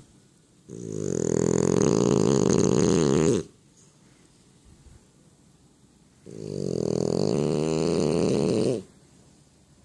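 Heavy snoring: two long snores about three seconds apart, each lasting over two seconds, swelling up and then stopping abruptly.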